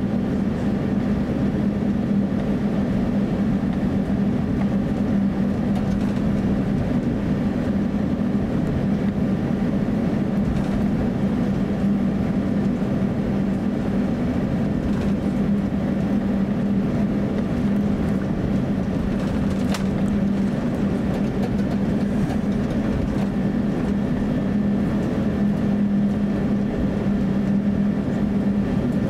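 Cabin noise inside an Airbus A350-900 taxiing. The Rolls-Royce Trent XWB engines run at low taxi power, mixed with the cabin air system, as a steady low hum.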